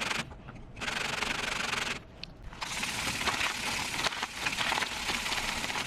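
Sanding by hand: gritty rubbing that runs in long stretches, with two short pauses, one just after the start and one about two seconds in.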